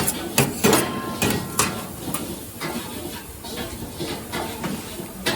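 Kitchen utensils knocking and clattering, about five sharp knocks in the first two seconds, over a steady background hiss.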